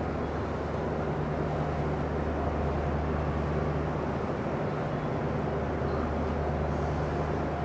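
Steady low drone of a passenger ferry's engines running, with a constant low hum under a wash of broad noise, as the ship comes in to berth.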